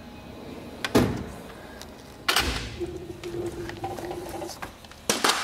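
Snap-on Epiq tool box drawers being shut and pulled: a sharp knock about a second in, then a drawer running on its slides with a steady tone, and a click near the end.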